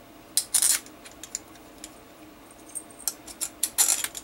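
Small steel bolts clinking and rattling as they are handled and set by hand into the bolt holes of a 48RE transmission valve body: a string of sharp metallic clicks, some with a short ring, loudest about half a second in and again near the end.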